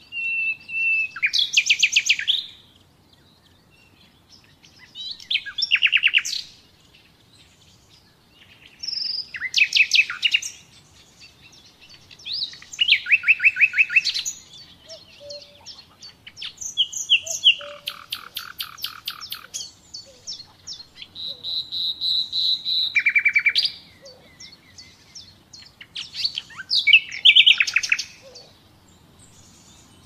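Common nightingale singing: about seven separate phrases of fast repeated notes and trills, each a second or two long, with short pauses between them. One phrase near the middle opens with a held high whistle before breaking into a rapid trill.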